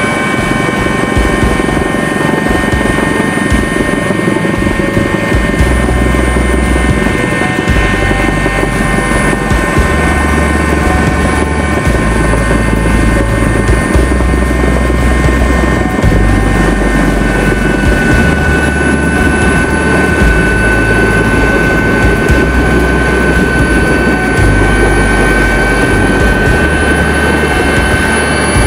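Helicopter heard from inside its cabin: rotor and turbine running steadily and loudly, with several steady high whines over the dense engine noise.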